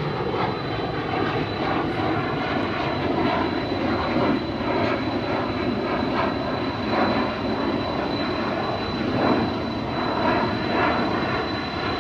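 Boeing 747-400 freighter's four turbofan engines running loud and steady, with a constant high whine over the noise.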